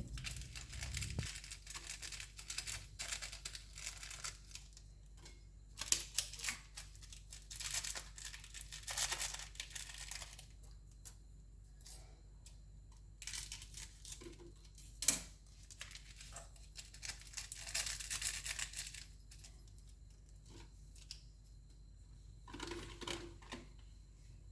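Faint, intermittent rustling and scraping of things being handled, with scattered light clicks and one sharper click about fifteen seconds in.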